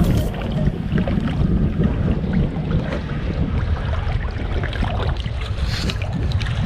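Wind buffeting the microphone in a steady low rumble, over water lapping and slapping against a kayak's hull in choppy shallows.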